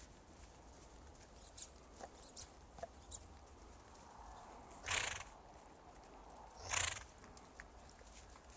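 A horse loping through snow snorts twice, two loud noisy breaths about two seconds apart. Faint hoof thuds are heard between them.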